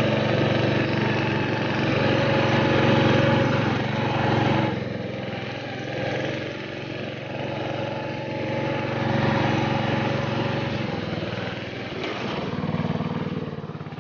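Riding lawn tractor's small engine running as the tractor is driven over rough, snowy trail. The engine sound drops about a third of the way in and picks up again near the end.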